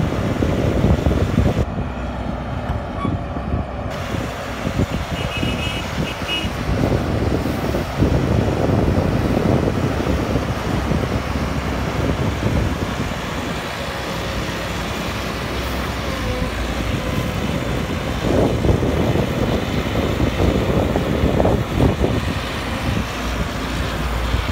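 Caterpillar E120B hydraulic excavator's diesel engine running steadily as it digs and swings soil, a continuous low machine rumble.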